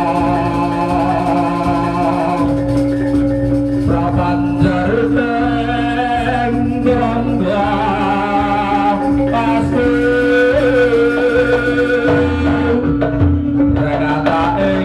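Live jaranan music from a Javanese gamelan ensemble: kendang hand drums and a steady held drone under a wavering sung melody, with heavier drum strokes near the end.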